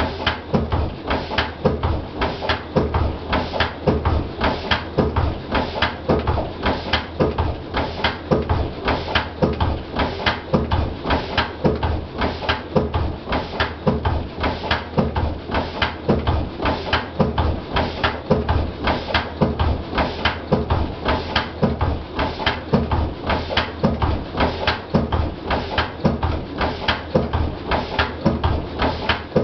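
Lister CS single-cylinder stationary diesel engine running steadily, with an even, rapid beat from its firing strokes.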